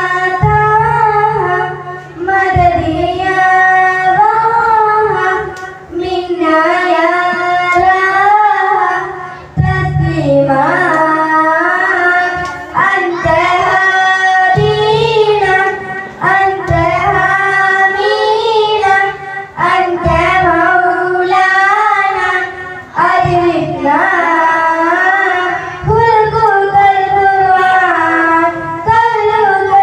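Two girls singing a qasida, an Islamic devotional song, together into microphones over a PA system. The melody runs in ornamented phrases of a few seconds each, with short breaths between them.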